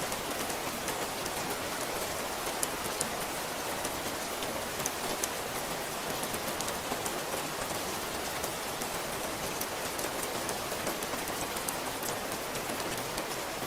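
Steady rain falling: an even hiss of rain with many small drop ticks scattered through it.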